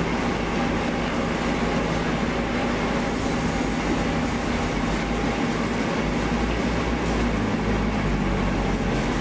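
Winery machinery running steadily: an even mechanical drone with a constant low hum under it.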